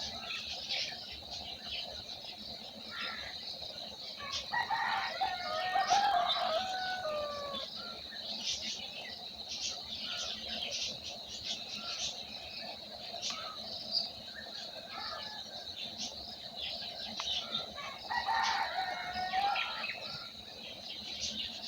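A rooster crows twice, each crow a few seconds long with a falling end, over constant high chirping of small birds.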